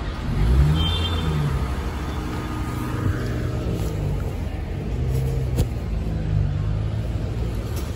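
Street traffic: car engines passing, a low hum that rises and falls in pitch, strongest about half a second in and again later on, over a steady outdoor hiss.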